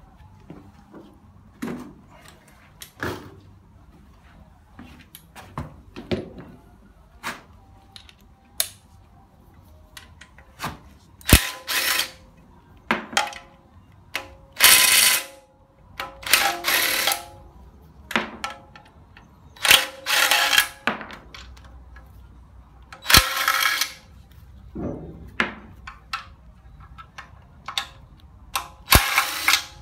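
Hand ratchet loosening the oil pan bolts on a Hyundai Accent engine: repeated bursts of rapid ratchet clicking, each lasting up to about a second, with a few sharp metallic clinks between them. Light clicks and handling noises come first, and the clicking bursts grow loud from about a third of the way in.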